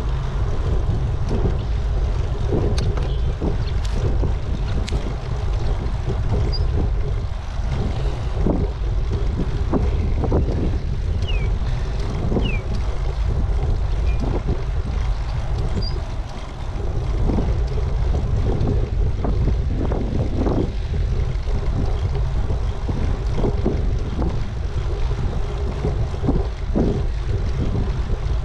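Wind buffeting the microphone of a camera on a moving bicycle: a steady low rumble, with frequent small knocks and rattles from the bike going over the road.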